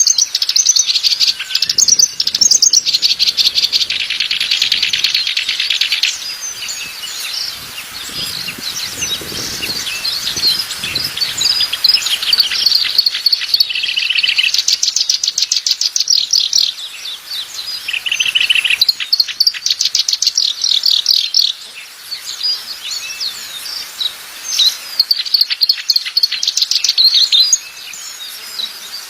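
Songbirds singing: fast, high trills and chirps, with a few short dips in loudness.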